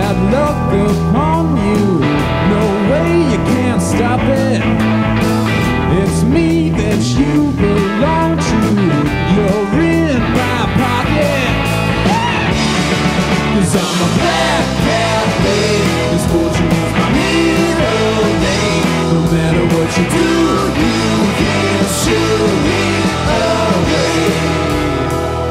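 Blues-rock band recording playing an instrumental passage: electric guitar with many bent, gliding notes over bass and drums.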